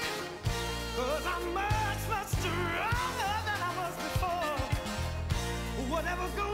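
Soul record from a 45 playing: a steady bass line under a wavering lead melody, in a passage between the sung verses.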